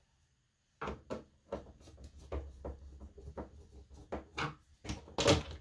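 Plastic back cover of an HP all-in-one desktop being worked loose by hand and screwdriver: a string of irregular clicks and knocks, the loudest near the end.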